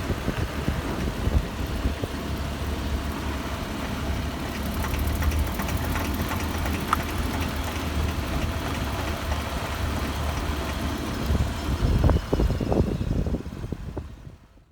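Daihatsu Tanto kei car with a 660 cc three-cylinder engine being driven: steady engine and road noise with a few sharp knocks near the end, cutting off just before the end. The test drive checks an outer CV-joint drive-shaft noise (a knocking, rattling 'koto-koto, kata-kata'), which spraying Bellhammer lubricant did not cure.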